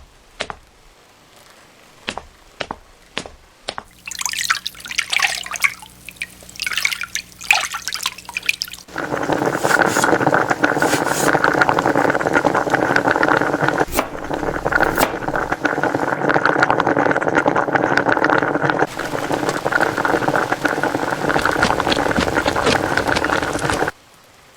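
Running water: a few sharp clicks, then water splashing and trickling with a shifting pitch, then a loud, steady rush of running water, like a shower, that cuts off suddenly near the end.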